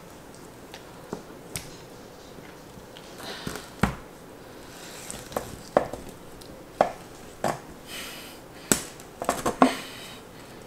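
A kitchen knife cuts up a raw whole rabbit on a stone countertop, making irregular sharp knocks and clicks as the blade works through meat and bone and strikes the counter. The loudest knock comes about four seconds in, with a quick cluster near the end.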